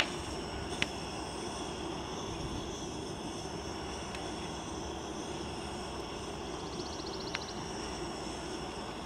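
Steady roar of a propane camp-stove burner, broken by three sharp crackles from a small wood fire.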